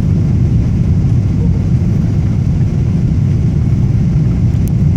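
Airplane cabin noise: the steady low rumble of the engines and the airflow past the fuselage, heard from inside the plane.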